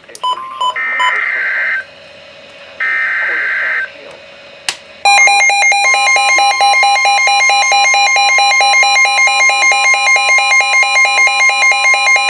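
NOAA Weather Radio receiver sounding an emergency alert. First come two short bursts of warbling SAME digital header tones, each about a second long. About five seconds in, the steady 1050 Hz warning alarm tone begins, with a rapid pulsing beep of about four pulses a second laid over it, signalling the start of a severe thunderstorm warning.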